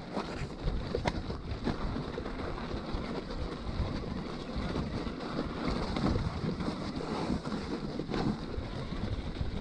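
Electric mountain bike riding over wet snow, slush and rough ground: a steady rumble of tyres and wind buffeting the microphone, with a few knocks from the bike over bumps.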